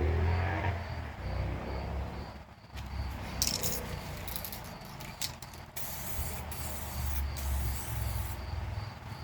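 Spray of 2K clear coat onto a repaired wheel: a short hiss about three seconds in, then longer spells of steady hiss until near the end. Crickets chirp steadily underneath.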